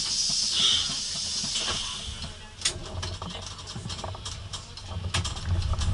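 Compressed-air hiss from an articulated city bus's pneumatic system, dying away about two seconds in. Then the bus's engine rumbles low, with a couple of sharp knocks or rattles, getting louder near the end.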